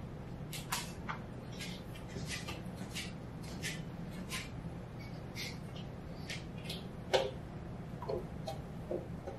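Steady low room hum with scattered light clicks, one or two a second. About seven seconds in comes a sharper knock: a hand pressing the chess clock button to start the blitz game.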